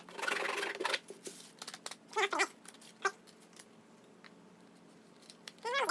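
A hand file rasping around the opening of the cigarette-lighter socket to widen it for a USB charger, in a burst of strokes at the start, followed by a few short squeaky scrapes and a quiet pause.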